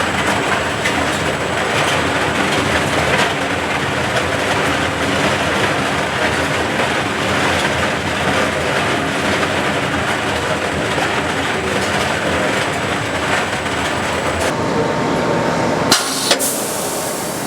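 Morcos RM600 double ribbon mixer running, its motor turning the stainless steel ribbons while its speed is varied: a steady mechanical noise with faint regular ticks. The sound changes about fourteen seconds in, and two sharp clicks come near the end.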